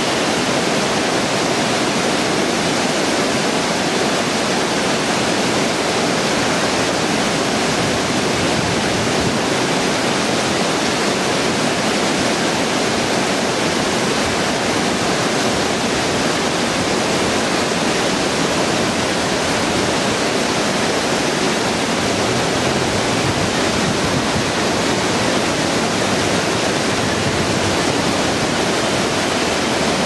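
River whitewater cascading down a drop into a churning pool: a steady, loud rushing of water that does not change.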